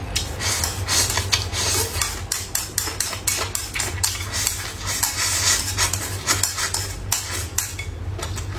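Chopsticks and tableware clicking and tapping against bowls and plates while eating, many quick irregular clicks over a steady low hum.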